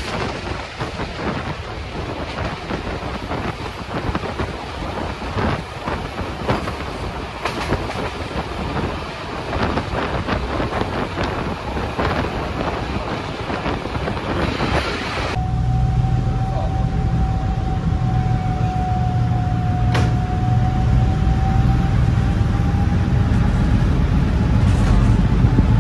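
A train running past with a dense rush of noise and many knocks from the wheels on the rails. About 15 seconds in, the sound cuts abruptly to a diesel locomotive engine running with a low, steady throb and a thin whine that rises slightly near the end.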